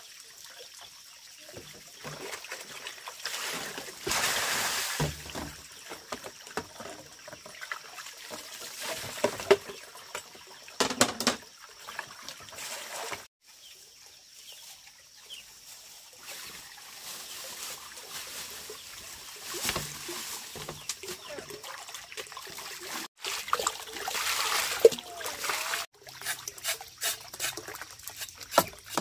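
Water poured and splashed in a few short bursts, with trickling and small knocks between.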